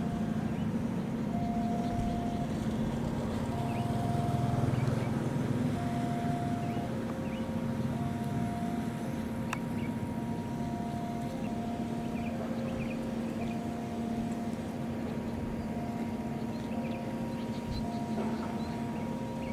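Level-crossing warning alarm sounding a repeating two-tone pattern of roughly one-second notes, over a steady low hum, as a green KAI railcar approaches.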